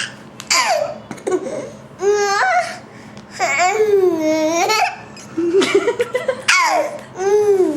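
A 15-month-old baby laughing in about five bursts. Several are long, high-pitched sounds that slide up and down in pitch.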